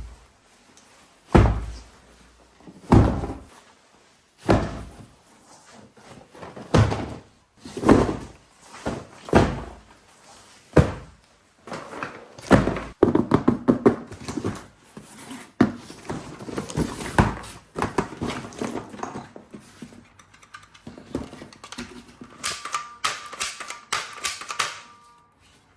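A series of knocks and thunks of hard objects being handled and set down, at first about one every second and a half, then a denser clatter. A short steady tone sounds near the end.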